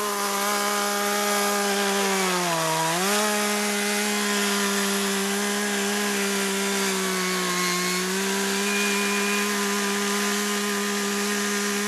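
Two-stroke chainsaw running at high revs on blended old and new two-stroke fuel mix, the test that the fuel works. The engine speed holds steady, with a brief dip about two and a half seconds in.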